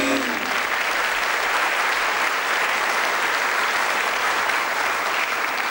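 Studio audience applauding steadily as the talk-show host takes his seat.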